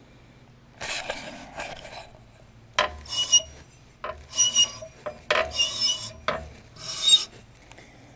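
A belt pulley on a Toro Z Master zero-turn mower's PTO drive, turned by hand in about five short goes, each giving a dry grinding rasp with a faint squeal. The sound points to the failed PTO clutch.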